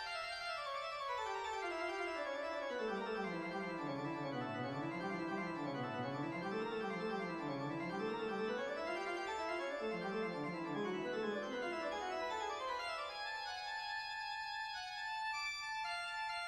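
Keyboard music with an organ-like sound. Long runs of notes sweep down, waver, and climb back up, then settle into held chords near the end.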